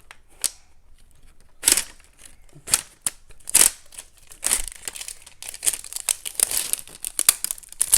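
Wrapping crinkling and tearing as it is pulled off a toy puzzle box by hand, in irregular crackles and rips.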